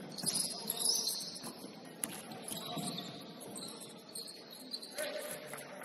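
Basketball sneakers squeaking on a hardwood court in short, high squeaks that come and go, with scattered sharp knocks from play.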